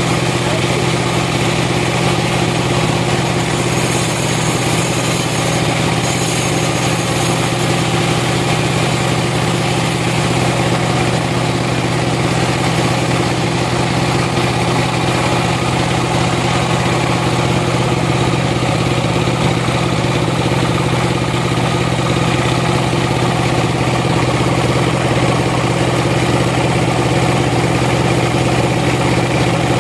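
Sawmill machinery running steadily with a constant low engine-like hum and a broad mechanical noise, with a brief hiss in the high range about four seconds in.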